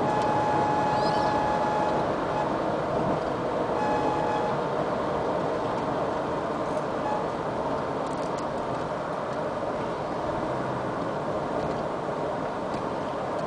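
Road and engine noise inside a moving 2010 Ford Explorer, with a thin, steady high-pitched tone during the first two seconds and again briefly about four seconds in. This is the unexplained noise that shows up on long trips: the dealer takes it for the 100 km/h speed alarm, and the owner says it is not an alarm.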